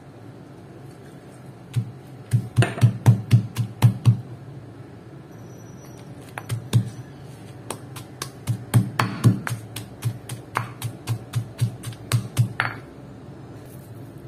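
Stone pestle pounding ingredients in a heavy stone mortar: dull, solid knocks in two quick runs of about four or five strikes a second, the first about two seconds in and the second from about eight seconds to nearly thirteen, with a few single strikes between.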